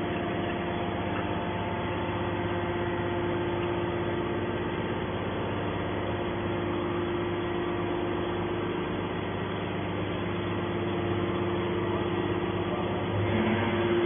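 Hydraulic scrap metal baler's power unit running with a steady hum while the ejector ram pushes a finished bale of compressed scrap out of the chamber. The note changes and grows a little louder near the end.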